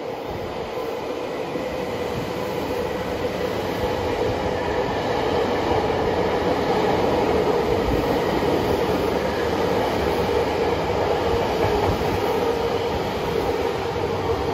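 Eidan 8000 series subway train running through an underground station without stopping: the steady running noise of its cars passing close by, growing louder over the first few seconds and then holding.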